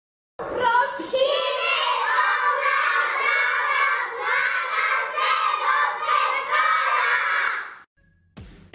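A group of young children shouting together in chorus, starting about half a second in and cutting off sharply near the end.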